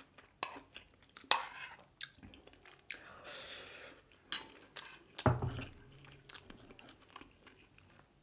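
Close-miked chewing of grilled pork sekuwa and rice: wet mouth smacks and clicks, irregular and sharp, a mukbang eating sound.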